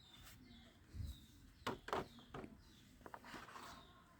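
Several light clicks and taps spread over a few seconds, from a plastic toy gun being handled.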